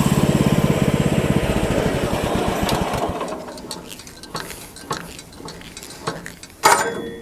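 Small gas engine of a Woodland Mills HM-126 bandsaw mill running with a steady pulse, then winding down and dying away over the first three seconds. After that come a few sharp knocks, the loudest near the end.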